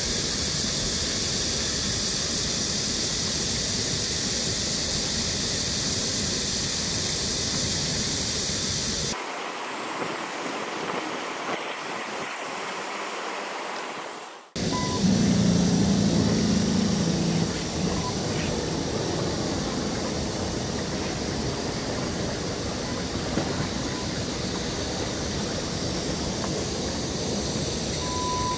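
Steady rushing of a rocky stream's flowing water, broken by two abrupt cuts about halfway through; just after the second cut a loud low hum lasts about two seconds.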